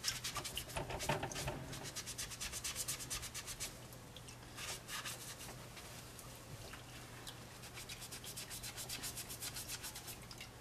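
A small white pad scrubbing the vinyl head of a wet Cabbage Patch Kid doll in quick, repeated strokes, rubbing marks off its cheeks. A faint steady hum lies underneath.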